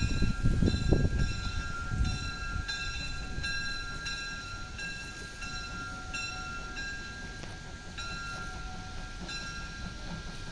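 Small steam locomotive rolling slowly up the track, its low rumble loudest in the first two seconds. A bell rings steadily over it, struck about twice a second.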